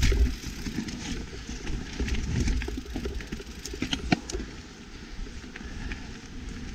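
YT Capra mountain bike being ridden down a dirt trail: a steady rumble of tyres and wind noise, broken by a scatter of sharp clatters and knocks as it hits rough ground. The loudest knock comes about four seconds in.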